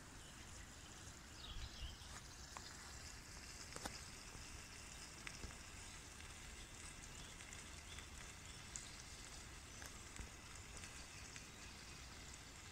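Faint crackle of twigs burning in a small wood-burning camp stove, with a few sharp pops over a low steady hiss.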